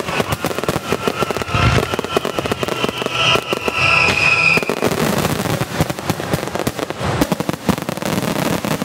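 Fireworks finale barrage: a dense, continuous run of rapid bangs and crackling. Held high tones sound over it through the first half.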